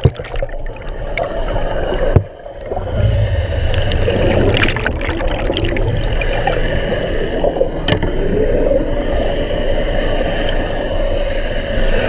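Yamaha F350 V8 outboard heard from underwater, running with a steady low hum and a wavering tone, over gurgling water. A single sharp knock comes about two seconds in, followed by a brief drop in level.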